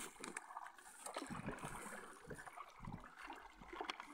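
Faint water gurgling and lapping, with a few light knocks.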